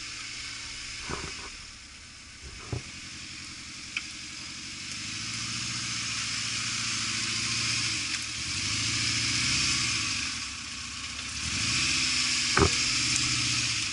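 An off-road 4x4's engine running under load, its revs and loudness rising and falling several times, with a few short sharp knocks, the loudest near the end.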